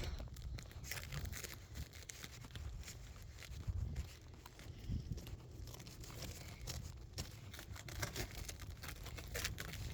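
Faint, irregular crunching and crackling of snow, heard close to a phone's built-in microphone over a low rumble.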